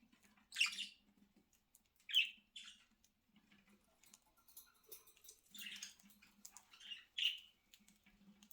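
Pet budgerigars chirping: half a dozen short, separate high calls spread over several seconds.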